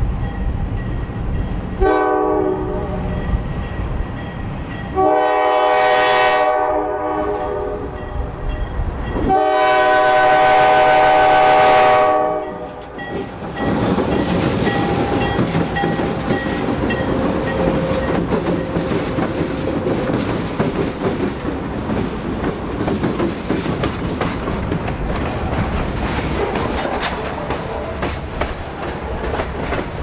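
Horn of a GE C40-8 freight diesel locomotive sounding three blasts, a short one followed by two long ones, the last the loudest. The locomotives then pass close, their diesel engines working as the train gathers speed, with wheels clattering over the rail joints.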